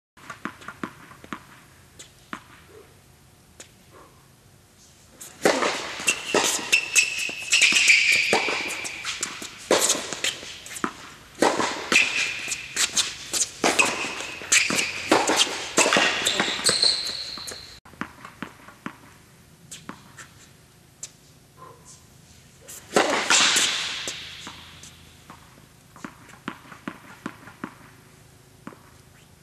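Tennis rally on an indoor hard court: racket strikes on the ball and ball bounces, sharp and echoing in the hall, with sneakers squeaking on the court surface during the busiest stretch. A louder, longer-ringing hit comes about two-thirds of the way through, and near the end only a few light ball bounces are heard.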